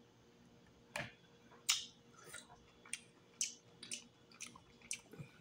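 A person chewing a mouthful of steamed crawfish, with about seven short, sharp wet mouth clicks and smacks spaced through the quiet.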